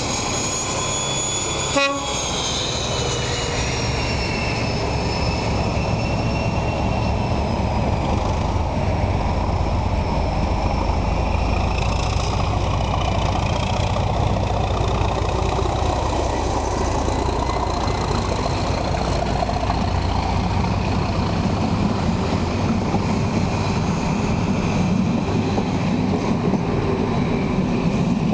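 Diesel train running with a steady low rumble. High thin tones slide down in pitch over the first few seconds, and there is one sharp click about two seconds in.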